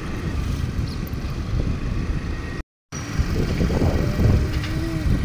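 Low, steady rumble of wind and road noise from riding on a moving motor scooter, broken by a brief dropout about two and a half seconds in. Near the end come a few short rising-and-falling pitched calls.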